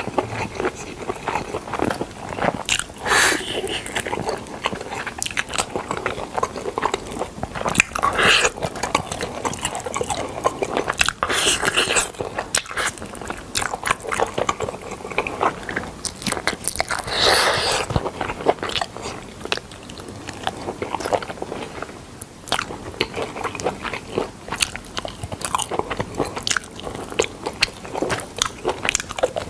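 Close-miked eating of smoked chicken: steady chewing with many small wet clicks and smacks, and a few louder bites spread through.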